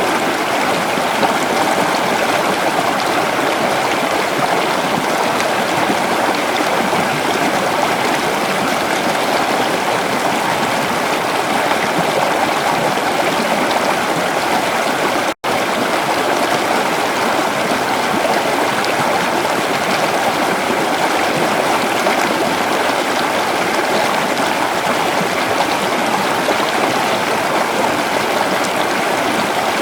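River water flowing steadily, an even rushing with a split-second gap about halfway through.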